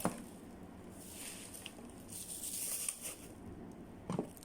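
Soft rustling of plastic packaging as accessories are handled, swelling for a couple of seconds, with a light knock near the end.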